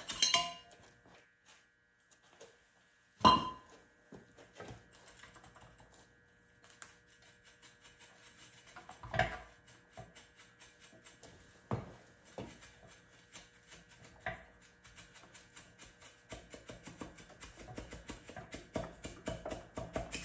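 Metal knocks and clinks from removed wet cylinder liners being handled in an engine block. The loudest knock comes about three seconds in, a few more follow spaced well apart, and a run of faint quick ticks comes near the end.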